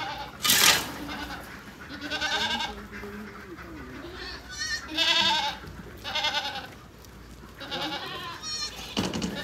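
A herd of goats bleating, about six short quavering calls from different animals at intervals of a second or so. A brief loud noise comes about half a second in.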